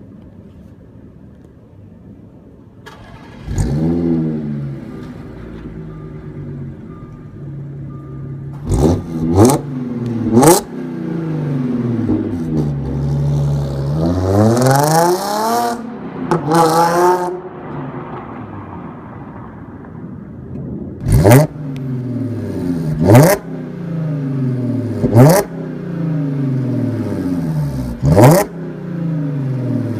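Supercharged 3.0 V6 of a 2014 Audi S4, breathing through AWE non-resonated downpipes and an AWE Touring exhaust, starts about three seconds in with a flare of revs and settles to idle. It is then blipped three times in quick succession, given a longer rev that climbs and falls, and blipped four more times about two seconds apart, each blip rising sharply and falling back to idle.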